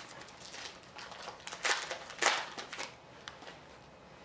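A foil Upper Deck hockey-card pack being torn open and its wrapper crinkled, with cards sliding against each other as they are handled. It comes as a run of short crackly rustles and small clicks, loudest about halfway through.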